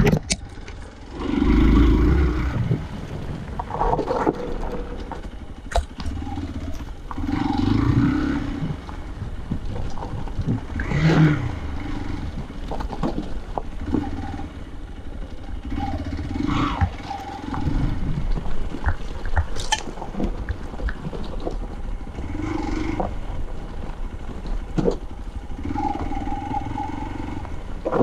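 Hero Xpulse 200's single-cylinder engine being ridden over a rough dirt trail, the throttle opened and closed in surges, loudest about two seconds in and again around eight seconds. Scattered clicks and knocks of stones and gravel sound under the tyres.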